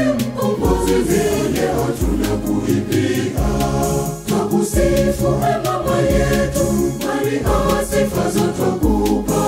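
Choir of women and men singing a Swahili hymn to Mary, backed by a deep bass line and a steady percussion beat.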